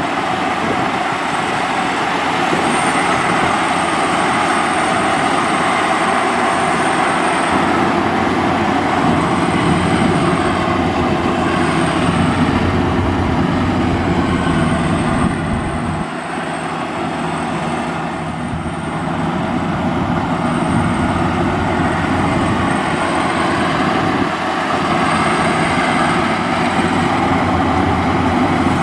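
Maxxi Bimo 102L rice combine harvester running steadily as it drives through a muddy paddy carrying a load of grain sacks. Its note drops for a few seconds about halfway through, then picks up again.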